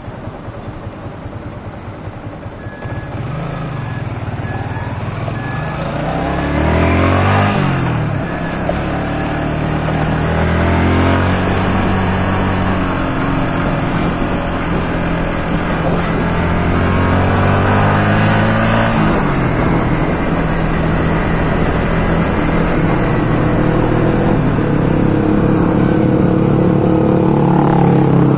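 Motorcycle engine heard from the rider's seat: running quietly, then pulling away about three seconds in, its pitch climbing and dropping with the gear changes, before settling into a steady run.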